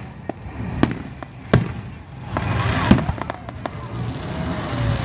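Aerial fireworks shells bursting overhead: a string of sharp bangs about a second apart over a steady low rumble, with a thicker rush of crackle around the middle.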